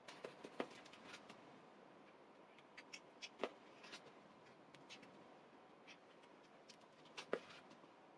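Faint scattered clicks and light taps from a steel knife tang being handled against its wooden handle scale and brass pins while glue is spread on it, with three sharper knocks about half a second, three and a half and seven and a half seconds in.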